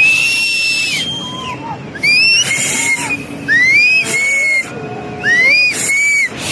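People whistling shrilly and over and over, loud mouth whistles that swoop up and hold, overlapping one another, as a warning of the oncoming mud-and-rock flash flood. Short bursts of hiss come between the whistles.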